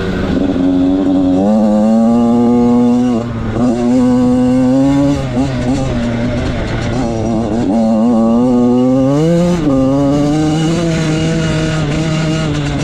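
Motocross dirt bike engine under hard riding, revving up and dropping back again and again as the throttle is opened and shut, with brief cut-backs about three and five seconds in.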